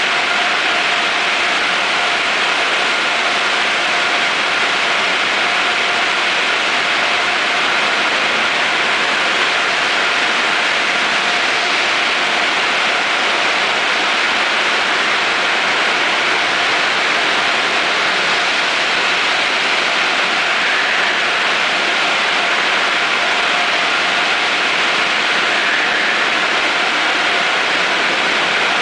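Automatic tunnel car wash running: a loud, steady hiss of water spray and wash machinery, with a faint constant whine underneath.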